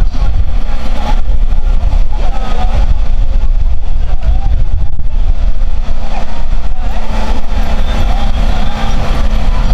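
Loud, steady low rumble with a faint constant hum.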